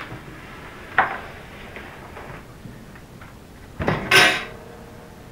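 A sharp plastic click about a second in, then a louder short clatter near four seconds, as the timer knob on a George Foreman Jr. countertop rotisserie is handled and set.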